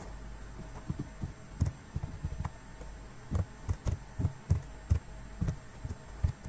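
Stylus tapping and dragging on a drawing tablet while handwriting on screen, heard as irregular soft low thuds over a steady electrical hum.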